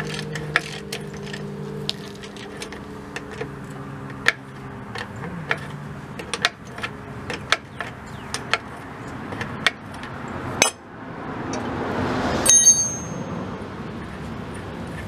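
Ratchet wrench clicking in short, irregular runs as bolts are turned on a truck's rear drum-brake backing plate. Near the end a metal tool lands with a bright ringing clang.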